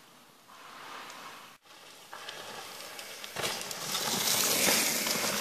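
A mountain bike rolling past close by, its tyres on the dirt and leaf-covered trail. It is faint at first, grows loud about three and a half seconds in, and is loudest just before the end.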